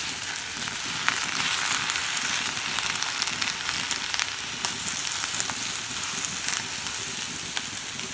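Baby bok choy sizzling in a hot cast-iron wok: a steady hiss with scattered small pops as the vegetable's own moisture cooks off against the dry, oil-free pan.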